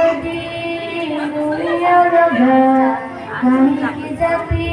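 A girl singing a patriotic song into a microphone, holding long, steady notes.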